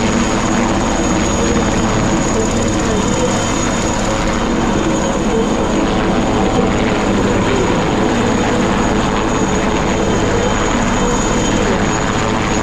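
Military helicopter hovering low: steady, loud rotor and turbine engine noise with a thin high whine.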